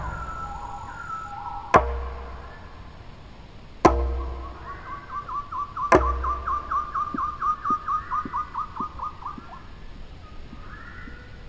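A bird calls a rapid run of about twenty short, down-slurred notes, roughly four a second, that slowly fall in pitch. Under it is a sparse film soundtrack of three sharp, deep hits about two seconds apart, which are the loudest sounds.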